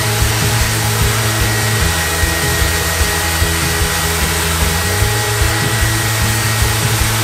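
Festool ETS 150/3 EQ random orbital sander running steadily as it sands a carved MDF panel, a constant whirring hiss. Background music plays along with it.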